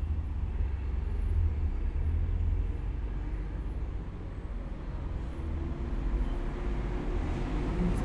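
GE TD1140PB top-loading washing machine in its spin cycle, the basket turning at speed: a steady low rumble from the drum and motor, with a faint whine coming in about two thirds of the way through.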